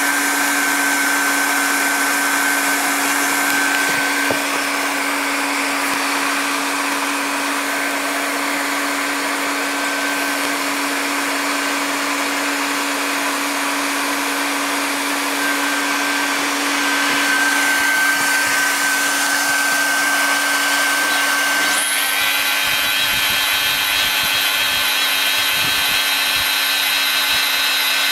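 LST600B hand-held plastic extrusion welder running steadily, its hot-air blower giving a constant hum with a high whine. About three-quarters of the way through a higher motor whine suddenly joins in as the extruder's drive motor runs to lay down molten HDPE.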